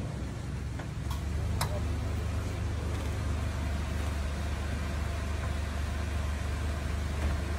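Minivan engine idling: a steady low hum that gets a little louder about a second in, with a few light clicks around then.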